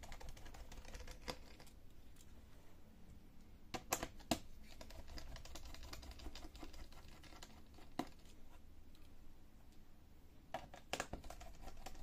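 Faint clicking and light tapping of a small screwdriver and gloved fingers on a Lenovo V330 laptop's plastic bottom panel as its screws are undone, with a few sharper clicks scattered through.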